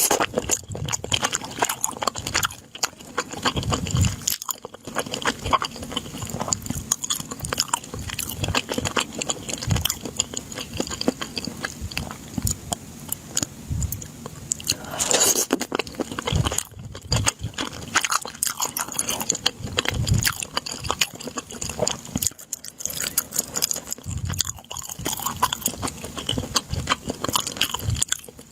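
Close-miked chewing and biting of food: a continuous run of small crisp clicks and wet mouth sounds, with a brief louder rushing sound about halfway through.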